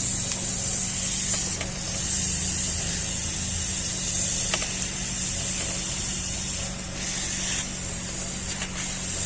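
Hot air rework gun blowing steadily, a high hiss over a low motor hum, heating the board to melt the solder of a faulty hard drive connector. A few light clicks.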